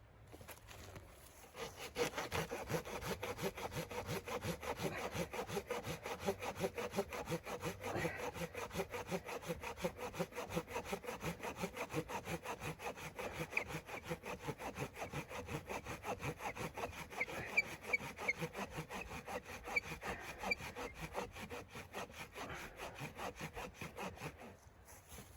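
Hand saw cutting through wood in steady, rapid back-and-forth strokes. The sawing starts about two seconds in and stops just before the end.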